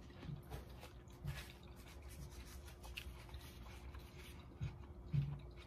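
Close-up chewing of crunchy food, orange chicken with water chestnuts, with a few short soft clicks and taps, the loudest a little after five seconds in.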